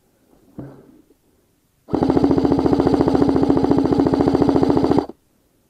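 Airsoft electric gun, an AM013 M4 Honey Badger replica, firing one long full-auto burst: a rapid, even, buzzing rattle that starts about two seconds in and lasts about three seconds before cutting off.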